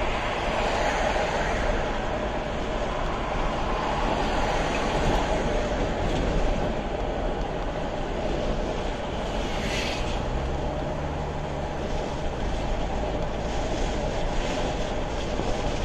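Steady road and tyre noise with engine drone heard inside a car's cabin while driving at highway speed, with a brief hiss about ten seconds in.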